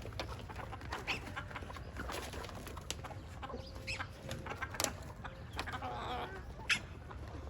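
Chickens clucking, with many short, sharp calls scattered throughout and a longer wavering call about six seconds in, over a steady low rumble.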